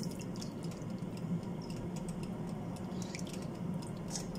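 Thin gravy being stirred in a saucepan with a whisk as it heats to thicken: soft liquid sloshing with light scattered clicks of the utensil, over a low steady hum.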